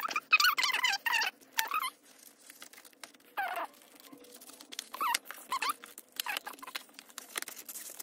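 High-pitched animal calls: a run of wavering squeaky calls in the first two seconds, then a few short ones. Under them, paper rustles and taps as cards and a letter are slid into envelopes.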